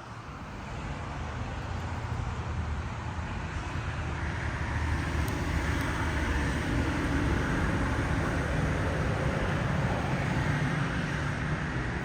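Road traffic going by: the rumble and tyre noise of passing vehicles, building over the first few seconds and then staying steady.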